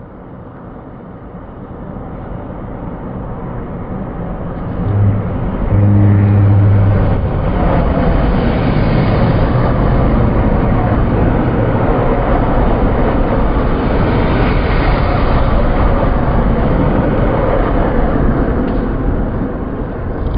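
Passenger train passing through a station, heard slowed down so it sounds deep. Its approach builds steadily, a short then a longer low horn blast sound about five seconds in, and a dense rumble of wheels and engine follows as the coaches go by, easing a little near the end.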